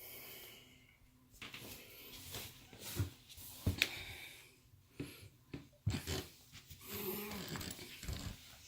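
A dog rolling and rubbing itself on a rug after a bath: rubbing and scuffing noises and breaths, with a few short knocks.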